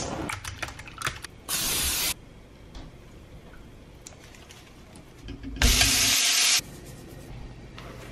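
Two short bursts of loud hissing over a frying pan on a gas stove: one about a second and a half in, a longer one of about a second near six seconds. Light clicks and taps of cookware come before them.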